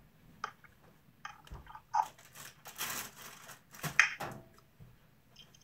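Scattered clicks, knocks and rustles of someone rummaging through things while searching for a lost toy, with a longer rustle about three seconds in.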